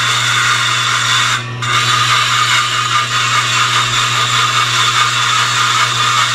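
A steel single-edge razor blade being sharpened against a spinning 100-grit diamond-impregnated disc driven by a milling machine: a steady grinding hiss that breaks off briefly about a second and a half in, then runs on and stops near the end. Under it, the mill's steady low hum.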